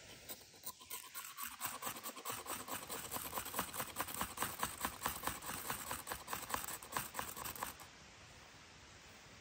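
Rapid, even scraping strokes, about five or six a second, growing louder and then stopping abruptly about eight seconds in.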